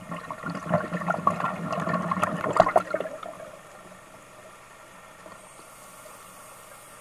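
Underwater bubbling and gurgling for about three seconds, then a faint steady hiss.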